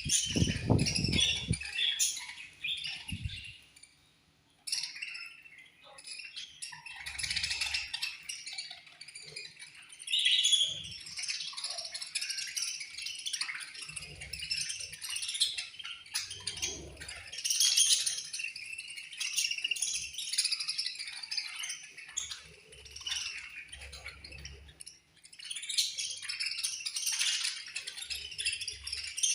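A flock of budgerigars chirping and chattering continuously in dense, overlapping high calls, with a brief lull about four seconds in. A low thump sounds right at the start.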